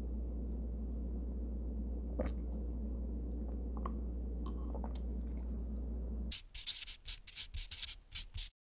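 A steady low hum with a few faint ticks. About six seconds in it gives way to roughly two seconds of quick, scratchy pen-on-paper writing strokes.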